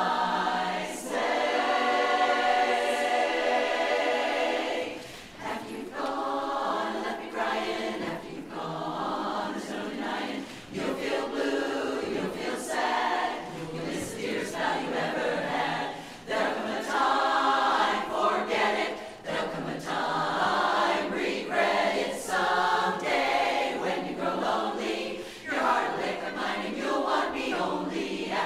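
Women's chorus singing a cappella in close harmony, with a long held chord about a second in.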